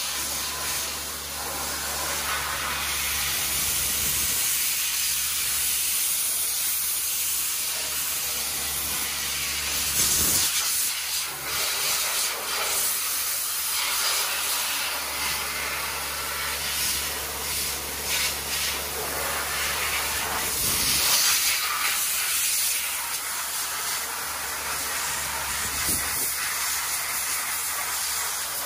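Dry ice (CO2) blasting nozzle running continuously, a loud steady hiss of compressed air and ice pellets striking the steel undercarriage, with a low hum beneath. The blast swells louder about a third of the way in and again about two-thirds in.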